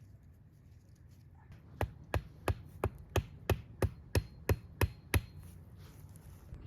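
Eleven quick, evenly spaced hammer blows, about three a second, starting about two seconds in and stopping after about three and a half seconds.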